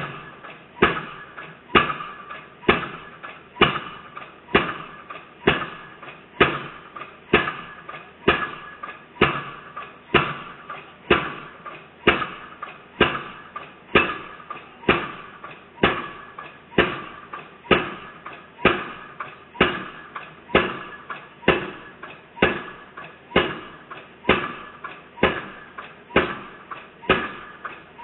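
Excavator-mounted piling hammer driving a pile for an overhead-line foundation: heavy blows at a steady rate of about one a second, each with a short metallic ring.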